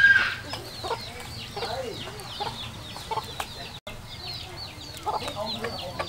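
Chickens: a steady run of high, falling chick peeps with lower hen clucks in between, and a louder call right at the start.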